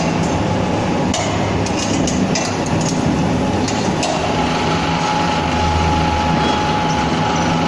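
Charcoal ball press machine running: a steady mechanical hum from its drive, with scattered knocks and clatter as the rollers press the charcoal powder into balls.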